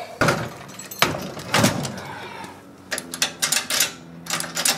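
Plastic clicks and metal rattles as a trailer's wiring plug is pushed into a pickup truck's socket and the trailer hitch and safety chains are handled. The sharpest knocks come in the first two seconds. Quick clusters of clicks follow from about three seconds in, when a steady low hum also starts.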